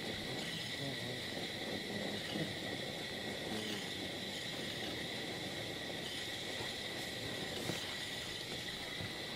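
Faint, steady high insect chirring with a light background hiss, heard while the balloon drifts with its burner off.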